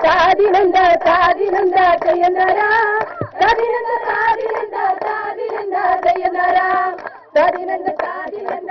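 Children's voices singing a song, the melody held in long wavering notes, with a short break about seven seconds in.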